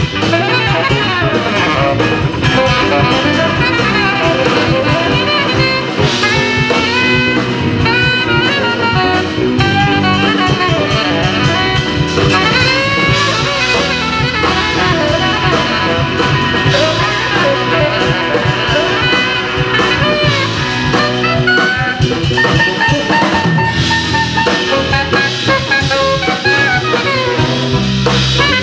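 Live jazz quartet playing: saxophone, guitar, bass and drum kit.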